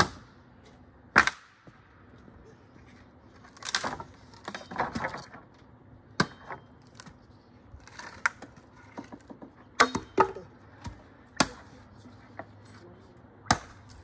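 A series of sharp knocks at irregular spacing, roughly one every one to two seconds, some coming in quick pairs.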